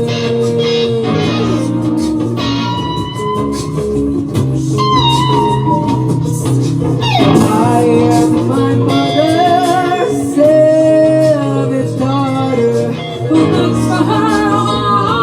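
Music with guitar over steady bass notes. A melody of held, wavering notes runs on top, with a sharp downward slide about seven seconds in.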